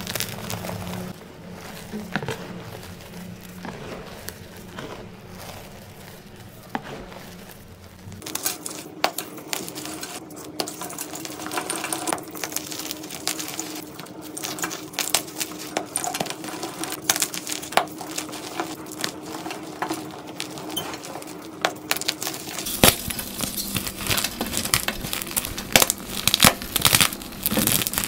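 Dyed chalk blocks crumbling and crunching as fingers squeeze and break them, with dense, irregular small crackles of breaking chalk and falling crumbs. The texture of the crunching changes abruptly twice, about 8 s in and near the end.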